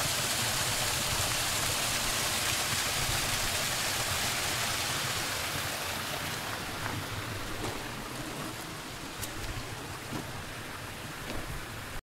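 Steady rush of water in a mountain stream, an even hiss that eases off a little in the second half.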